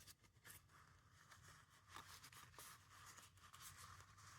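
Near silence, with faint rustling and light clicks of paper and card being handled.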